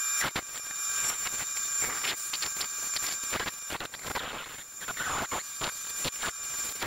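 Bandsaw cutting curves through a thick wooden board: a steady high-pitched whine from the running saw under the uneven rasp of the blade in the wood, which swells and eases as the board is fed and turned.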